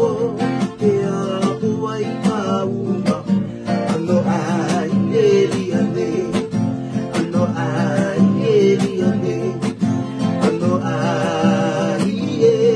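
Two acoustic guitars strummed together in a steady rhythm, playing an instrumental passage of a song.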